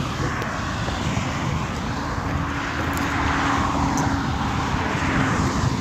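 A passing engine, a faint steady drone that swells about halfway through and eases off, over wind noise on the microphone.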